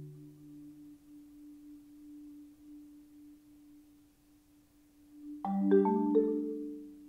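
Yamaha concert marimba played solo: a soft single note is held steady while a low note fades at the start. About five seconds in, a loud chord and a few more notes are struck in quick succession and left to ring.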